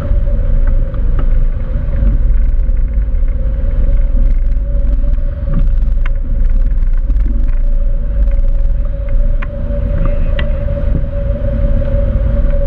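Wind buffeting the microphone of a wing-mounted action camera on a hang glider in flight: a loud, fluttering low rumble, with a steady hum and scattered faint ticks over it.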